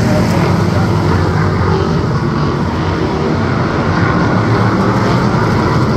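V8 stock car engine running, a loud, steady drone with no clear rise or fall in revs.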